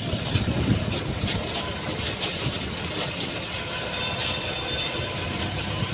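A motor vehicle's engine running at low speed, heard from inside the cabin as a steady low sound.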